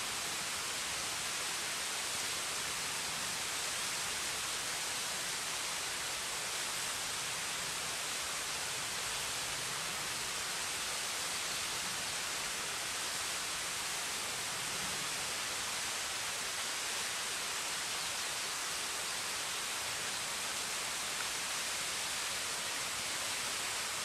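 Tsugi no Taki, a tall waterfall dropping down a cliff face: a steady, even hiss of falling water.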